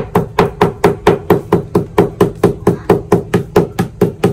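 Back of a kitchen knife pounding a beef steak on a wooden chopping board, a steady rapid run of knocks about four to five a second, to tenderize the meat.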